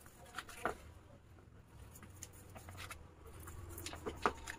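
A knife cutting soft coconut barfi on a steel plate: a few faint, scattered clicks and light knocks as the blade meets the plate.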